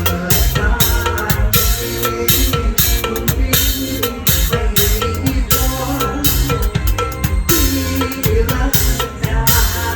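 Live drum kit playing a steady beat of kick drum, snare and cymbal strikes with a mor lam band, with bass and keyboard lines underneath.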